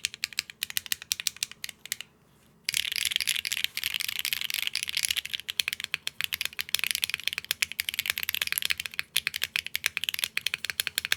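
Fast typing on a KBDfans Agar Mini 40% mechanical keyboard with Akko Cilantro switches and PBT keycaps: a rapid stream of key clacks, with a short pause about two seconds in. The PBT caps give it a slightly glassy sound.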